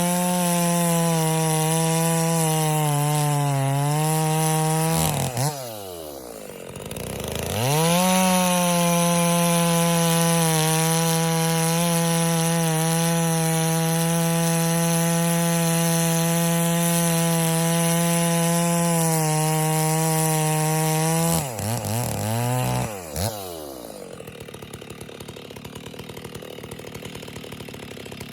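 Rebuilt Stihl MS660 two-stroke chainsaw engine, fitted with a new crankshaft and clutch-side crankcase, running at high revs. About five seconds in the revs fall away and it is opened up again, holding steady high revs for about thirteen seconds, then it is let off with a few quick blips and settles to idle near the end. It runs strong and even, as a healthy 660 should.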